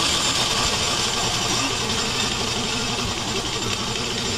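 Electric blade coffee grinder running steadily with its lid held down, grinding whole coffee beans.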